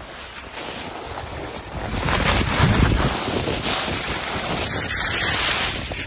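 Wind buffeting the microphone of a skier going downhill, with skis hissing and scraping over packed snow. It grows louder about two seconds in.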